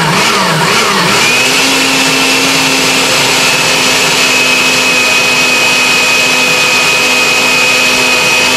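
Countertop blender motor puréeing a cilantro pesto. Its pitch rises and falls for about the first second as the blade works through the herbs and nuts, then holds steady and high as the mixture turns smooth.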